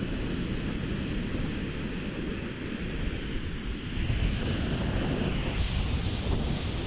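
Ocean surf breaking and washing up the beach, with wind rumbling on the phone's microphone; the surf gets louder about four seconds in.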